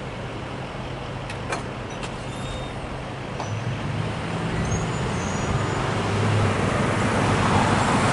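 Road traffic starting across a railroad grade crossing: car and pickup truck engines and tyres growing steadily louder toward the end as the vehicles pull past. A couple of faint clicks come about a second and a half in.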